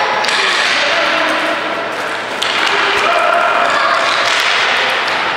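Ball hockey play in an echoing arena: players calling out over knocks and slaps of sticks and ball, with a sharp knock about two and a half seconds in.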